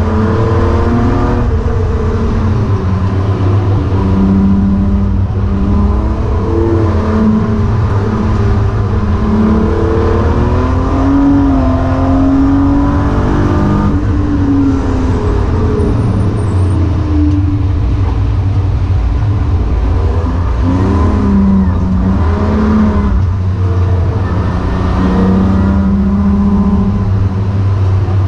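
BMW E36 M3's straight-six engine heard from inside the car's cabin, rising in pitch under acceleration and dropping back off the throttle, several times over, over a steady low rumble.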